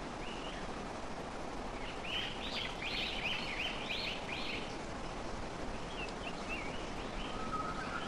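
Outdoor nature ambience: a steady rushing background with a bird calling, a run of about eight quick, high calls starting about two seconds in, then fainter chirps.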